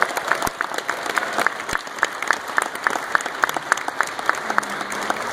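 Audience applauding, with one person clapping close by, sharply and about four times a second, until near the end.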